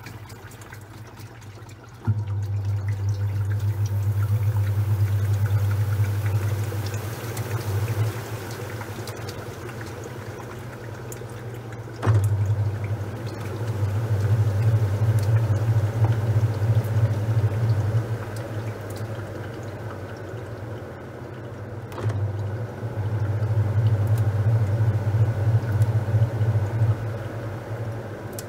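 Top-loading washing machine in its wash cycle: the motor drives the agitator in runs of about six seconds, switching on three times with a low hum and then coasting to a pause, while water and towels slosh in the drum.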